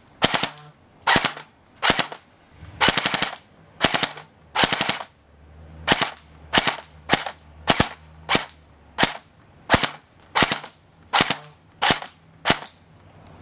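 D-Boy SCAR-L airsoft electric gun firing, mostly single shots about half a second to a second apart, with a couple of short rapid bursts early on. Each shot is a sharp snap.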